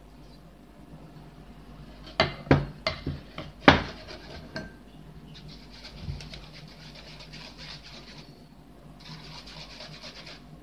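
Sharp clinks of a glass bowl, a metal sieve and a spoon knocking together about two to four seconds in, then a spoon scraping steadily against a wire-mesh sieve as egg custard mixture is pushed through it, in two stretches.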